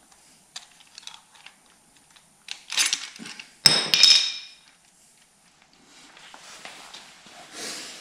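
Steel timing chains and sprockets of a Jaguar E-Type Series II's XK straight-six clinking and rattling as the chain assembly is handled onto the block, with a loud metallic clank that rings briefly about three and a half seconds in, then quieter handling noise.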